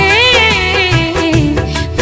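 Bhojpuri film song music: a wavering, held melodic note in the first second over steady backing and percussion.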